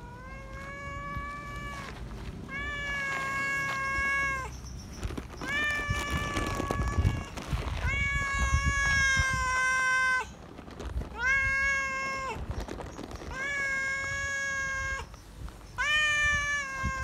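Feral tabby cat meowing loud and repeatedly at a person for attention: about seven long meows, roughly one every two seconds, each rising quickly in pitch and then held level.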